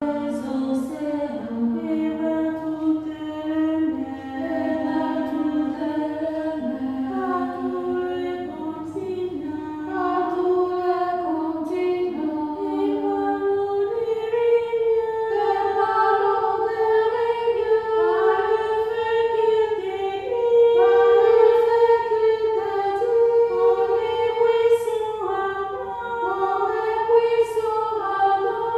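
Unaccompanied choir singing a worship song in sustained notes, the melody moving higher about halfway through.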